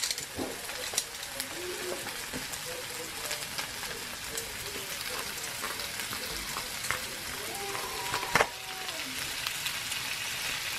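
Chopped onion sizzling steadily in hot oil in a frying pan, with scattered clicks and taps as chunks of raw chicken are dropped in. The loudest is a single sharp tap about eight seconds in.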